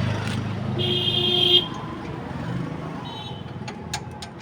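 Vehicle horn sounding briefly, loud, with a shorter fainter honk about two seconds later, over a steady traffic rumble. A few sharp clicks near the end.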